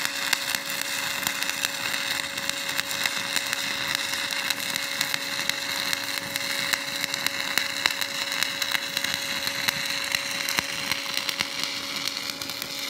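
Stick (SMAW) welding arc crackling steadily, with a steady hum underneath, as a stringer fill pass is run on a flat-position groove-weld test plate.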